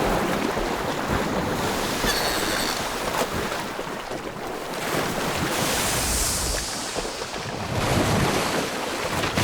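Sea water surging and splashing in a steady rush of waves and wind-like noise, as killer whales chase a whale calf at the surface.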